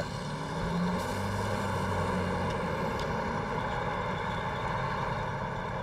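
Fire engine's engine running steadily to drive its pump, a continuous drone with a low hum.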